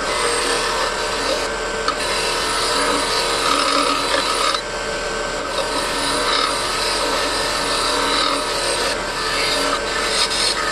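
Steady abrasive rasping as rust is worked off the steel of antique pliers, with a short change in the sound about every few seconds.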